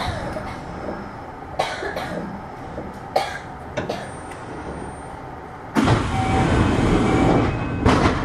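Kintetsu 6620 series train standing at the platform before departure: a few sharp clunks over a steady low hum, then a loud rushing noise that starts suddenly about six seconds in and cuts off about two seconds later.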